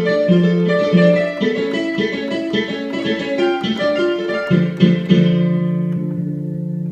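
Korg Krome keyboard playing a Korg M1 piano sound: a melody over bass notes, then a chord held from about two thirds in that rings on, its brightness dying away.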